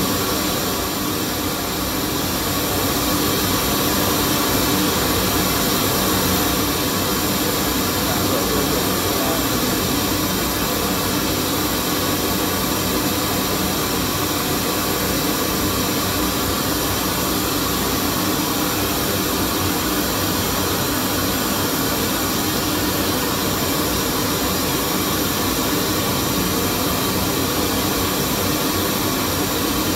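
Pink noise test signal played loud through a Germany Zero120 loudspeaker (DS12W65 bass driver, DS44T25 tweeter) for a real-time analyser frequency-response measurement: a steady, even rushing hiss across the whole range. It is turned up slightly a few seconds in.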